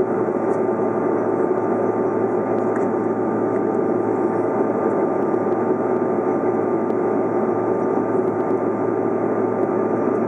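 Steady cabin noise of a Canadair CRJ-200 regional jet climbing after takeoff: the even rush and hum of its two rear-mounted GE CF34 turbofans and the airflow, with a few faint steady tones running through it.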